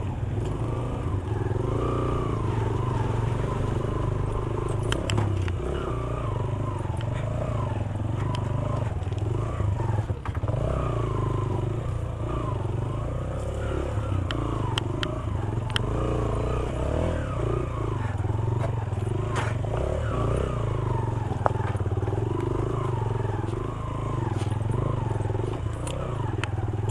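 Motorcycle engine running at low speed over a rocky track, its pitch rising and falling with the throttle. Stones clack against the bike now and then.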